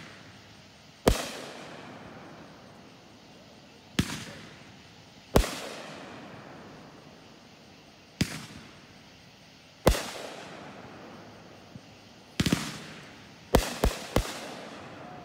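Aerial fireworks bursting in the sky: sharp bangs a second or more apart, each trailing off in an echo, with a quick run of several bangs in the last three seconds.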